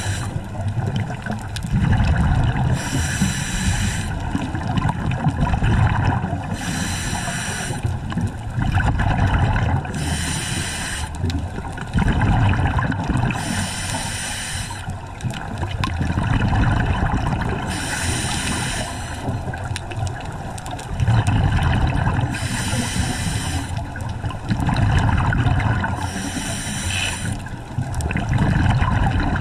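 A scuba diver breathing through a regulator in a slow, even cycle: about one-second hisses of inhaled air, each followed by a low bubbling rumble of exhaled bubbles, repeating about every four seconds.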